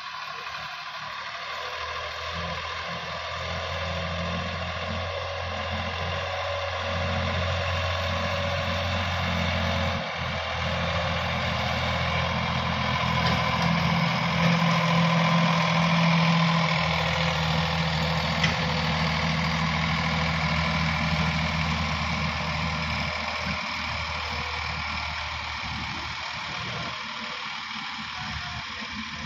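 Heavy diesel machinery engine running steadily, working harder and louder for several seconds in the middle, then easing back.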